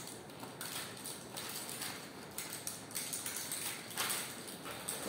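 Plastic packaging rustling and crinkling as a bag of plastic sample tubes is handled, with irregular small clicks and rattles.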